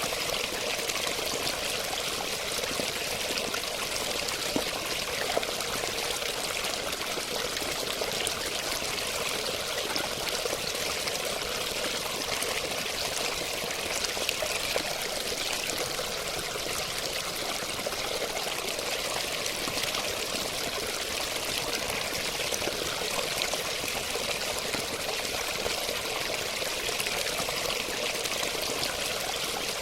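Running water splashing and trickling steadily, with fine droplet patter throughout and no change in flow.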